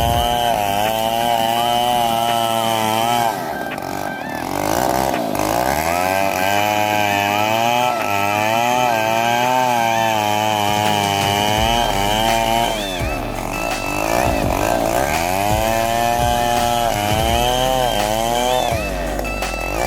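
Chainsaw engine running hard while cutting wood, its pitch repeatedly sagging under load and climbing back. The sound drops briefly a few times.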